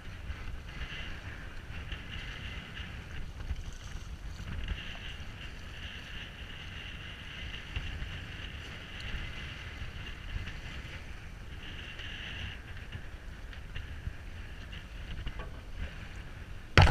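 Wind buffeting the camera microphone aboard a boat at sea, a steady uneven low rumble, with a wavering hiss of water moving around the hull.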